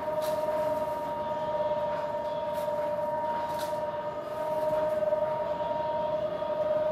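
Supermarket refrigerated and freezer display cases humming, two steady tones held over a low haze of store noise, with a few faint ticks.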